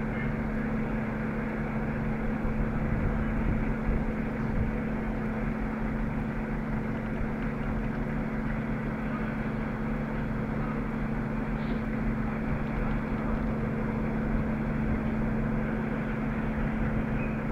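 Engine of a truck-mounted mobile crane running steadily at constant speed, a continuous low drone with an even hum.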